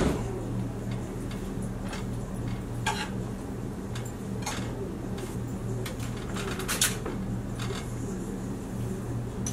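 A utensil stirring food in a frying pan on a stovetop, scraping and clinking against the pan with a few sharp knocks, over a steady low hum.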